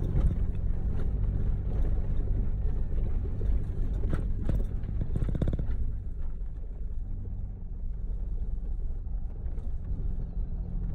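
Off-road vehicle driving, a steady low engine and road rumble, with a few knocks and rattles about four to five seconds in; the rumble eases a little after about six seconds.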